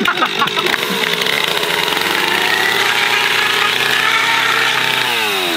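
Stihl Farm Boss two-stroke chainsaw running at high revs as it cuts through a foam-board wing. About five seconds in, the throttle is let off and the engine's pitch falls.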